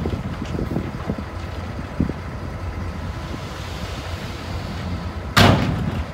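Dump trucks tipping loads of soil and rock: a steady low engine rumble with scattered knocks of rock, and a single loud bang about five seconds in.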